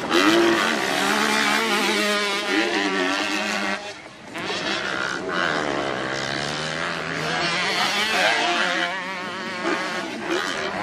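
Several motocross bikes racing, their engines revving up and down through the gears with overlapping rising and falling pitches. There is a short lull about four seconds in before the engines pick up again.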